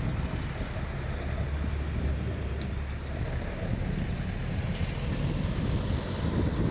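Blizzard wind buffeting the microphone: a steady low rumble under a hiss of wind-driven snow, with a short sharp hiss about five seconds in.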